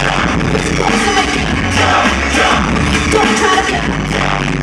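Live pop music played loud over a concert sound system, with singing and a steady beat.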